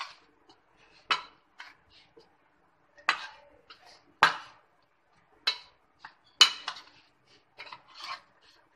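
Raw chicken pieces being mixed by hand with spice masala in a white enamel plate. The pieces knock and clink against the plate at irregular moments, loudest about four seconds in and again about six and a half seconds in.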